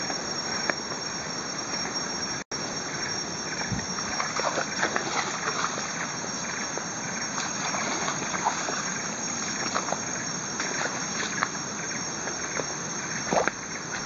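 Footsteps and brushing through undergrowth on a muddy rainforest trail, with scattered soft ticks and rustles over a steady high drone of insects.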